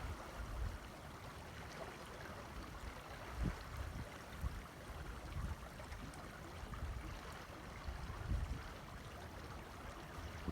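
Mountain creek's water rushing steadily, with a few brief low rumbles.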